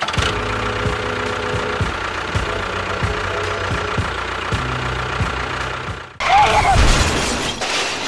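Tractor engine chugging steadily with an even low beat. About six seconds in it cuts off, and a sudden loud crash-like noise follows.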